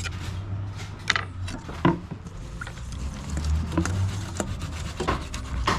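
Scattered light knocks and clicks from cookware and utensils being handled while seasoning is added to meat, over a steady low rumble.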